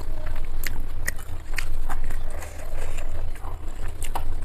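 Close-miked chewing of chicken biryani, with scattered sharp wet mouth clicks and smacks, over a steady low hum.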